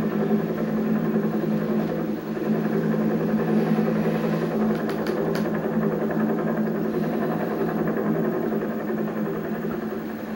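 Motor vehicle engine running steadily, a constant low hum with no change in pitch, easing off slightly near the end.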